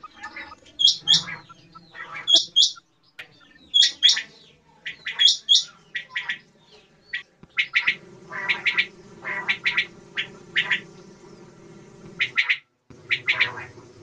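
Common quail calling: repeated short phrases of sharp high paired notes, about one phrase every second and a half. About halfway through, the calls turn into quicker clusters over a steady low hum, with a brief break near the end.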